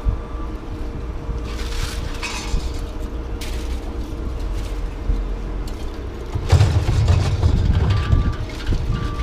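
A heavy vehicle's engine running steadily, with a reversing alarm beeping at the start and then again about once a second near the end. A loud rattling clatter about six and a half seconds in.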